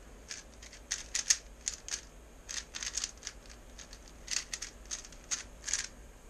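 3x3 speedcube being turned by hand: bunches of quick plastic clicks and clacks as its layers snap round while it is scrambled.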